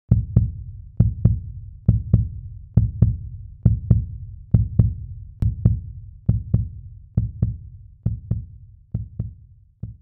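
Deep double thumps in a steady heartbeat rhythm, a little under one pair a second, growing weaker near the end: a heartbeat sound effect.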